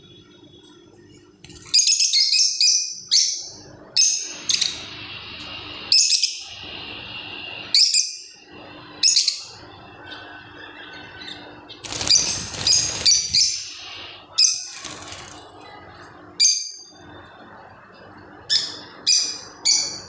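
Caged rosy-faced lovebirds giving loud, shrill, high-pitched chirps: a quick flurry about two seconds in, then single calls every second or two, a longer burst around the middle, and three quick calls near the end.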